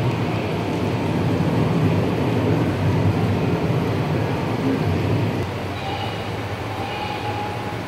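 Model train running on the layout track, a steady rumble that drops in level about five seconds in, after which faint thin high tones come through.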